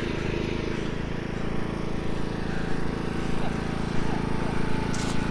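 Small engine idling steadily.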